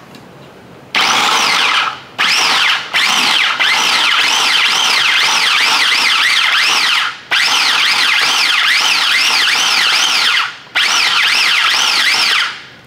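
Chef's Chopper electric mini food processor chopping garlic cloves and rosemary, run in about five pulses of one to three seconds each with short pauses between. Its motor gives a high whine that wavers up and down about three times a second.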